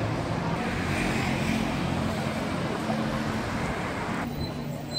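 Steady vehicle or traffic running noise, a dense rumble and hiss with a low hum, whose higher part cuts off suddenly about four seconds in.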